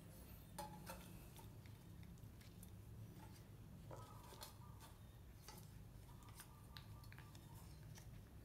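Near silence with faint, scattered clicks and taps, a few with a brief ring, as a young monkey handles food at a steel bowl on a wire cage floor.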